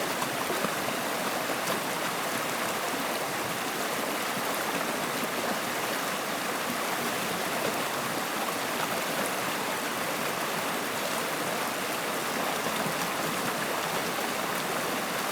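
Running water, a steady unbroken rush with no pauses or changes.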